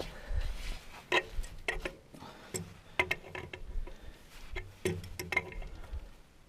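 Metal hand tools clicking and clinking against steel in irregular sharp knocks, during work on bolts in a loader's floor.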